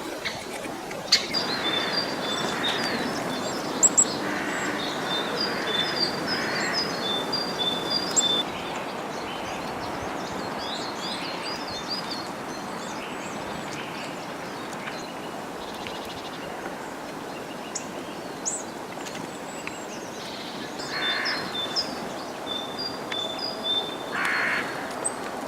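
Tits calling around a winter feeder: many short high chips and quick runs of repeated notes over a steady background hiss, with a few harsher, lower calls mixed in. The calling is busy for the first eight seconds or so, thins out through the middle, and picks up again near the end.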